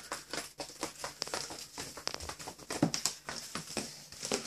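Yorkshire terrier's booted paws pattering on a tile floor: a quick, uneven run of light taps and soft scuffs.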